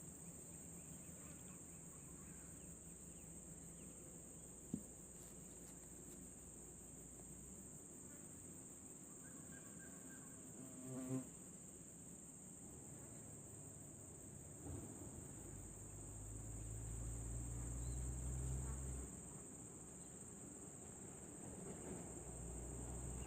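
Insects chirring in one steady high-pitched drone. A brief faint call sounds about halfway through, and a faint low rumble swells and fades a few seconds later.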